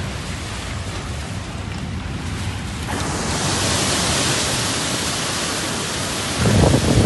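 Steady rain hiss, louder from about three seconds in, with wind rumbling on the microphone and a few strong wind blasts on it near the end.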